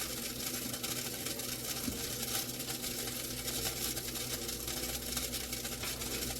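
BLACK+DECKER TO3215SS air fry toaster oven running with burgers cooking inside: a steady low hum under an even hiss.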